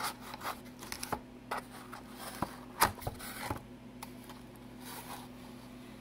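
Inner cardboard box being handled and its tuck-flap lid pulled open: a scatter of light scrapes, rustles and clicks, the sharpest about three seconds in, over a faint steady hum.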